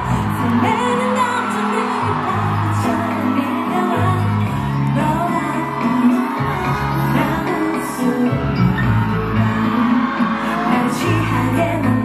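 Pop song with singing, played loud over a concert sound system.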